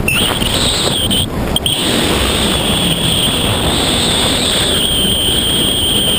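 Wind rushing over the microphone during a tandem parachute descent under an open canopy: a steady, loud rush with a thin high whistle over it that briefly drops out about a second and a half in.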